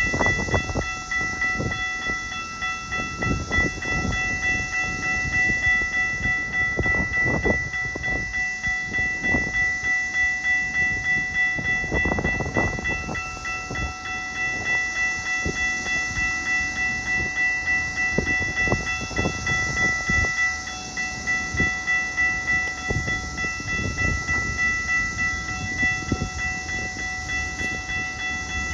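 Railroad crossing warning bell ringing on and on at a quick, even beat as an Amtrak passenger train approaches, with low rumbling underneath.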